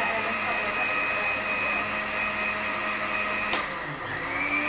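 Electric blender motor running steadily, blending a strawberry milkshake of milk, strawberries and sugar. About three and a half seconds in there is a click, and the motor's pitch dips and then rises back up.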